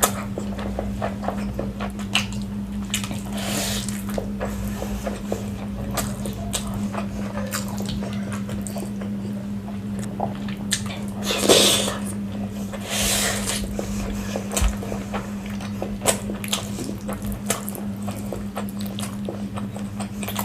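Close-miked eating sounds: biting and chewing chicken biryani with gravy, full of wet mouth clicks, with a few louder smacking bursts. A steady low hum runs underneath.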